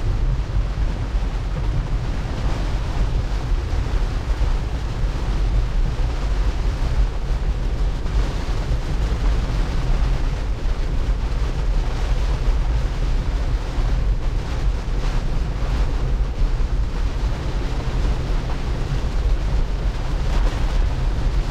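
Heavy rain on a moving car and its tyres running on a flooded road, heard from inside the cabin as a loud, steady wash of noise over a deep rumble.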